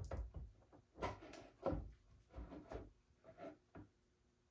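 A 3D-printed two-stroke engine turned over by hand at its flywheel, giving a run of irregular clicks and clunks that thin out near the end. The engine has lost all compression, which the builder thinks is a blown head gasket.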